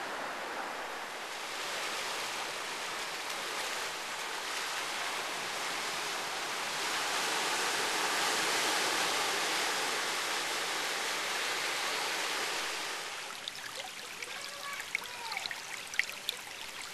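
Surf washing over shoreline rocks, a steady rushing wash that swells to its loudest around the middle. About thirteen seconds in it drops away, leaving quieter surroundings with short chirps and clicks.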